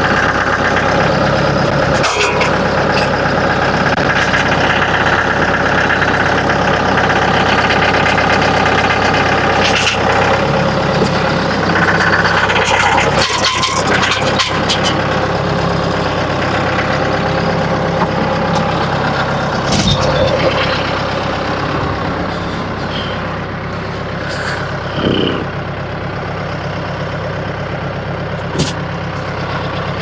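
Mahindra compact tractor's diesel engine running steadily, with a few scattered knocks and clunks; the engine goes a little quieter about twenty seconds in.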